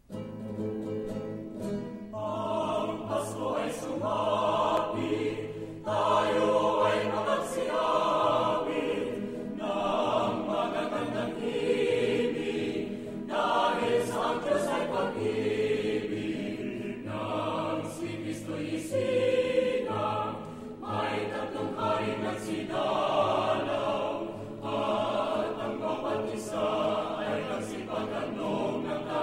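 Background music: a choir singing in phrases of a couple of seconds, over a steady low accompaniment.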